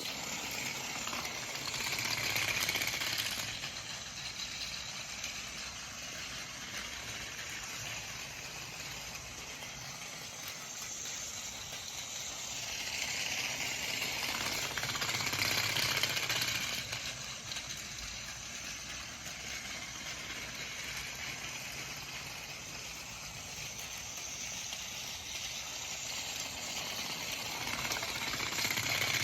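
Battery-powered Plarail toy train's small motor whirring and its wheels rattling along plastic track. The sound swells three times, about every thirteen seconds, as the train comes round close by.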